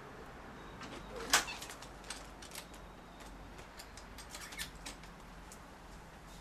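Hands working at a window frame: one sharp click about a second in, then a run of small clicks and knocks.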